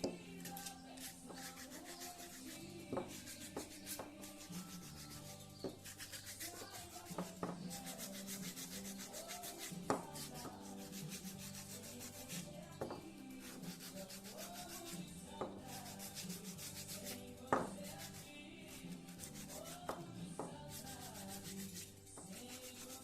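Sandpaper rubbing on wood in rapid, repeated strokes, with a few sharp knocks, the loudest about ten seconds in and again near the end. Background music plays quietly under it.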